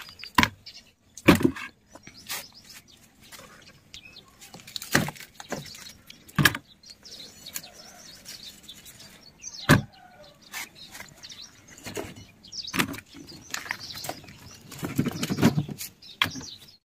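A knife cutting the thick, mature lower leaves off aloe vera plants, with a sharp crack or snap every few seconds between the rustling of leaves being handled. The loudest cracks come about a second in and near the middle, and there is a longer spell of rustling near the end.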